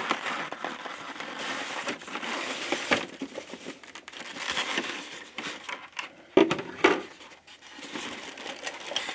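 Hands handling packaging: a cardboard box sleeve sliding off and a styrofoam insert shifting among packing peanuts, a continuous rustling and scraping. A few sharp knocks: one about three seconds in and the two loudest a little past six seconds in.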